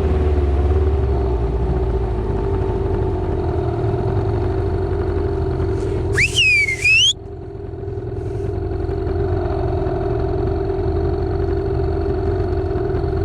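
Boat motor running steadily at low speed with a low rumble, on a boat that is low on fuel. About six seconds in, a loud high whistle-like glide cuts in for about a second.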